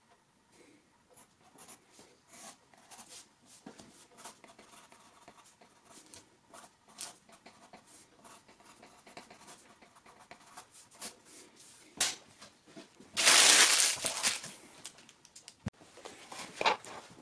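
Pen scratching on paper in many short strokes as a sketch is drawn and lettered. About thirteen seconds in comes a loud noisy burst lasting just over a second, followed near the end by a few light knocks as tools are laid down on a carpet.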